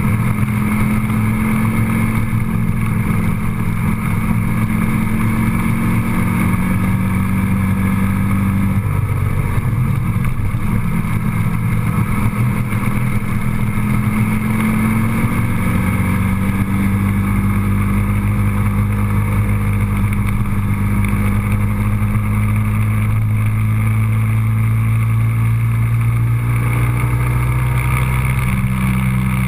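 A vehicle's engine drones steadily while it is under way, heard with road and wind noise. Its low hum shifts in pitch a few times, about nine seconds in, around fifteen seconds in, and again near the end.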